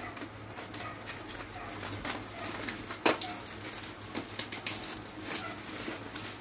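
Plastic bubble wrap and packaging crinkling and crackling as it is handled, a quick irregular run of sharp crackles, with a low steady hum underneath.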